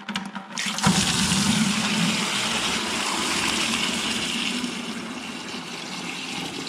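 Antifreeze draining from a 1943 John Deere Model B's drain-plug hole into a plastic bucket: a thin trickle that turns into a full, steady gushing stream about a second in as the bull plug comes out, splashing into the liquid already in the bucket.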